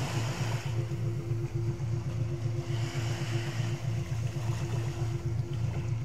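A low electronic meditation drone, a pulsing hum with a steady higher tone above it, set as a 3.5 Hz meditation frequency, laid over the soft wash of sea waves.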